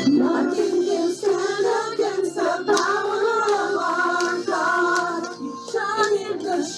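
A worship team singing a praise song with band accompaniment, the voices holding long sung notes over the instruments.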